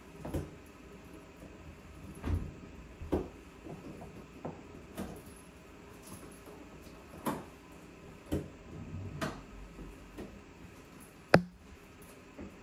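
Stiletto heels clicking on a hard tile floor, a few separate steps spaced about a second apart, along with the knocks and clicks of a front door being unlocked and opened. The loudest is a single sharp click near the end.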